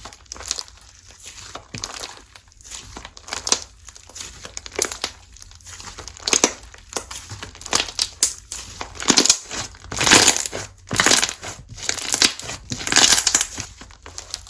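Slime being squeezed, stretched and pressed by hand, giving irregular crackling, crunchy pops and squelches that come thicker and louder in the second half.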